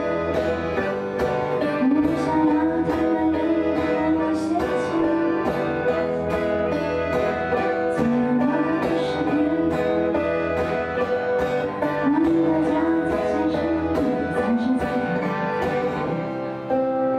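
Live acoustic duo music: an accordion sustains chords under a steady picked rhythm from a plucked string instrument.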